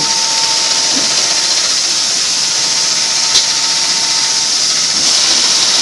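Mop head sewing machine running steadily between stitching cycles: a constant high hiss under a thin steady whine that stops about four and a half seconds in, with one sharp click about three and a half seconds in.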